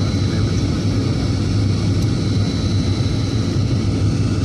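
Motorboat engine running at a steady speed, heard from on board as a low, even drone.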